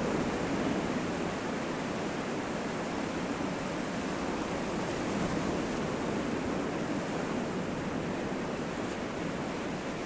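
Sea surf breaking and washing up the shore: a steady rushing noise.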